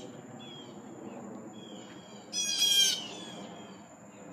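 A bird calling: one loud call about two and a half seconds in, lasting about half a second, part of a call repeated every few seconds.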